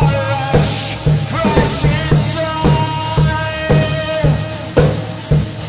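Live band playing: a drum kit keeps a steady beat of kick and snare under sustained keyboard tones, with bright cymbal crashes about one and two seconds in.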